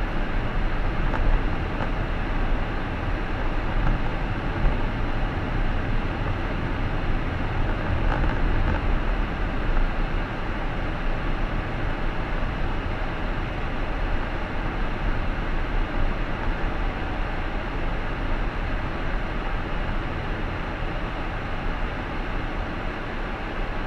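Steady road and tyre noise of a car driving, with a low engine hum.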